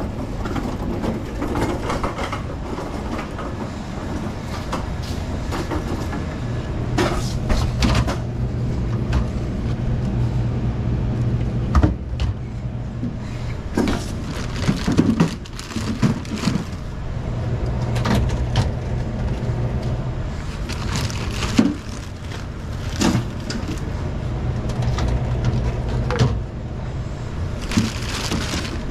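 Plastic shrink-wrap crinkling and tearing as packs of Sprite bottles are pulled apart by gloved hands, with irregular sharp crackles and knocks of the plastic bottles, over a steady low rumble.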